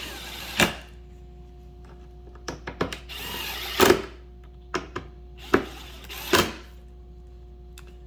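Power drill-driver running in short bursts, driving small mounting screws down snug, with several sharp clicks and knocks in between.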